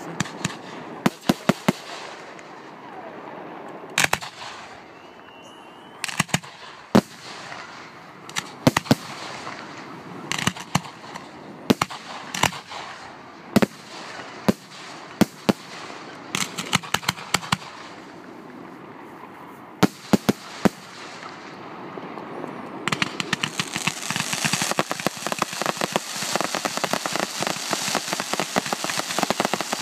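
Aerial fireworks display: shells bursting with sharp bangs, one or a few every second or two. About three-quarters of the way through, the bangs give way to a dense, continuous crackling that keeps going.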